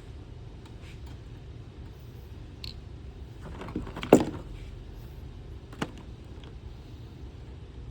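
Handling clatter of tools and wiring parts: a few light clicks, then a rustling run of clicks ending in one sharp clack about four seconds in, and another single click nearly two seconds later, over a steady low hum.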